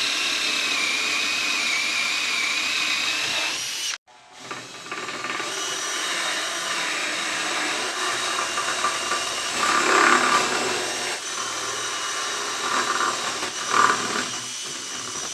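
Handheld electric drill boring slotted holes through wooden frame members, its motor whining steadily under load. It cuts off abruptly about four seconds in, then starts again, with louder surges around ten and fourteen seconds.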